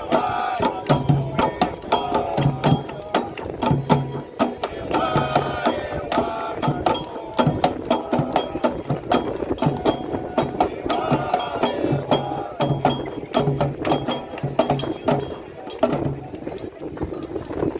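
Candomblé toque: atabaque drums played in a fast, steady rhythm with sharp bell-like strikes, while voices sing chant phrases that come back about every five or six seconds.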